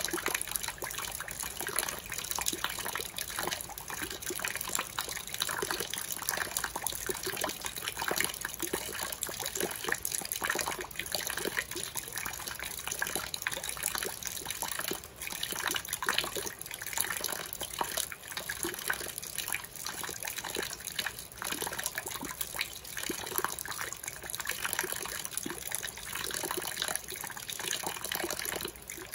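Rainwater running off the eaves and falling in a steady trickling stream into a water-filled pot, splashing continuously and unevenly on the surface.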